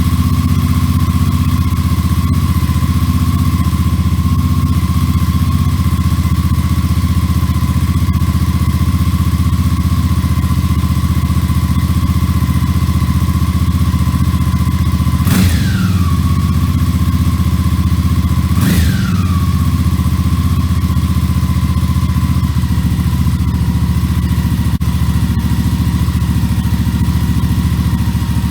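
Suzuki V-Strom 650's V-twin idling steadily through its exhaust with the inner silencer (baffle) taken out, blipped twice briefly about halfway through, each time revving up and quickly falling back to idle.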